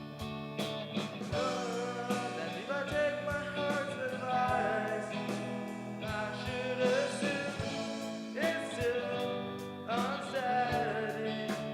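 Song with a singing voice over guitar and a steady drum beat.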